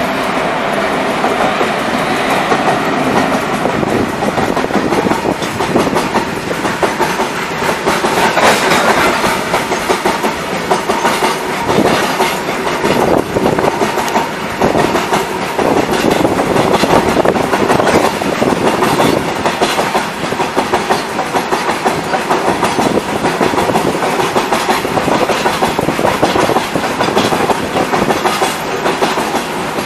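Long freight train of covered wagons rolling past close by, just behind twin WAG-5 electric locomotives. A steady, loud rumble with a rapid clickety-clack of wheels over rail joints.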